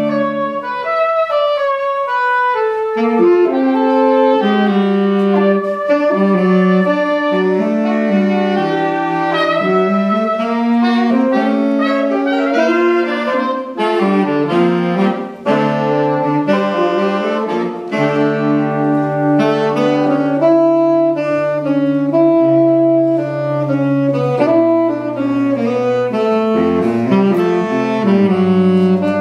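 Saxophone quartet of baritone, tenor, alto and soprano saxophones playing a jazz tune in close harmony, all four voices moving together. In the second half the baritone holds long low notes under the upper parts.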